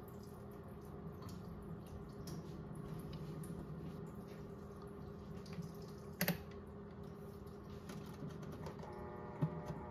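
Modified toy washing machine running, its small motor humming steadily while soapy water sloshes and patters in the drum. There is a sharp click about six seconds in and another near the end, where a second, higher hum joins.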